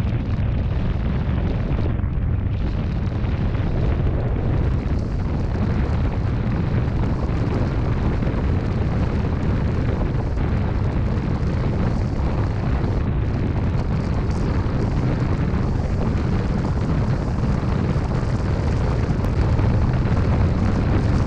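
Wind buffeting and rushing over the camera microphone as a fat-tire e-bike accelerates under power to about 29 mph, a steady low rumble that grows slightly louder toward the end.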